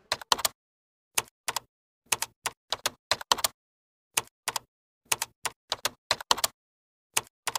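Typing sound effect: irregular keystroke clicks, often in pairs, about three a second, with dead silence between them.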